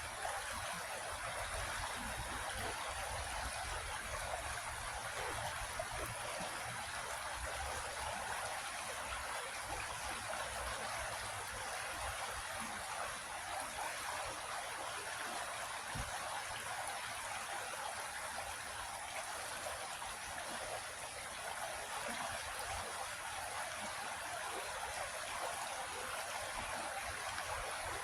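A creek flowing, its water running steadily over rocks in an even, unbroken rush.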